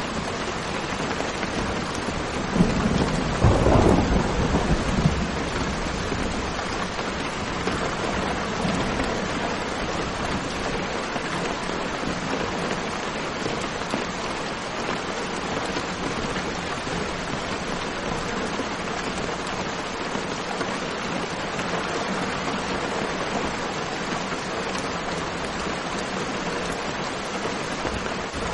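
Steady rain falling, with a low rumble of thunder swelling up about two and a half seconds in and fading by about five seconds.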